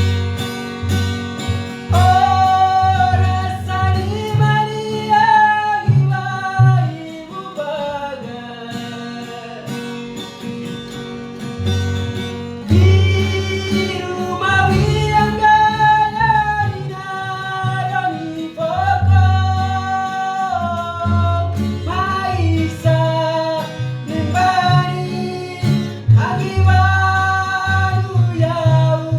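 A song: a singer's voice carrying the melody over plucked guitar accompaniment and a pulsing bass line.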